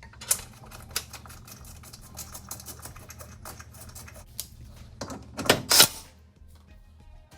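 Rapid clicking and clattering of hand tools and parts being handled, with sharp clicks near the start and a louder rattling burst about five seconds in.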